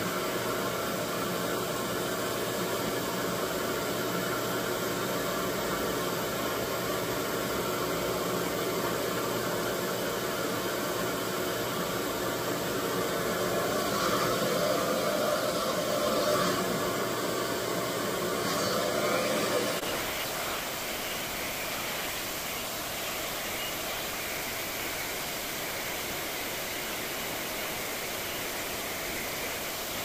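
RevAir vacuum blow dryer running: a steady rush of air with a motor whine. About two-thirds of the way through the sound changes and gets a little quieter.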